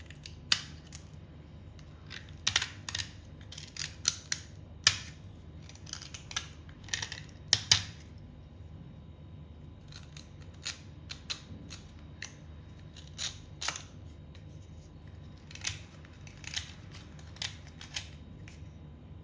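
Small metal blade scraping layers off a wet white clay stick: short, sharp scrapes in quick irregular runs, closely packed through the first half and more spaced out later.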